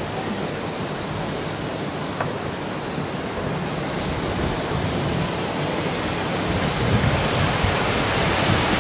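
Water rushing through the sluices of a canal lock's upper gates into the lock chamber as it fills, a steady rush that grows a little louder in the second half.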